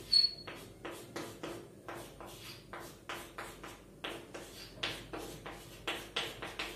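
Chalk writing on a chalkboard: a quick, irregular run of taps and short scrapes as the strokes of a chemical structure are drawn, with a brief high squeak of the chalk near the start.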